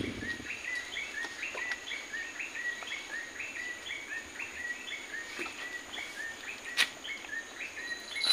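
A bird calling over and over in short, quick chirps, about three a second, stepping up and down in pitch, over a faint steady high hum of the forest. One sharp click about seven seconds in.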